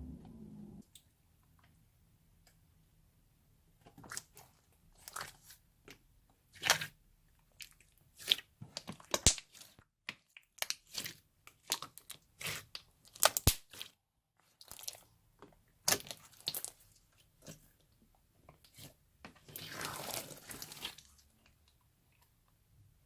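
Firm clear slime being squeezed and stretched by hand, giving off irregular sharp clicks and pops as trapped air bubbles burst, with a longer squelching rush near the end.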